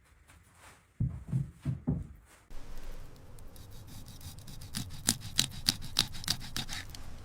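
A few dull low thuds, then steady rubbing and scraping with a quick run of sharp clicks.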